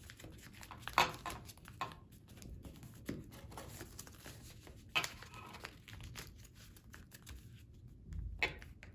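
Sheet of folding paper rustling and crackling as it is folded and creased into a paper crane, with sharp crinkles about a second in, at about five seconds and near the end.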